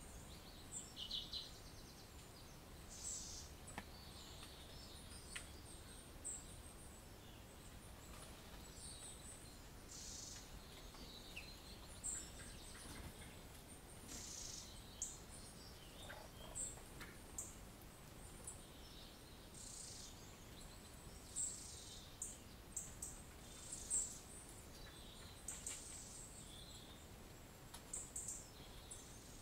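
Small birds chirping and singing on and off, with many short high-pitched calls, faint over a quiet background.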